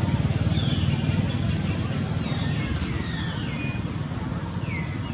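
An engine running steadily with a low, finely pulsing hum that slowly fades, while a few short high chirps falling in pitch come and go.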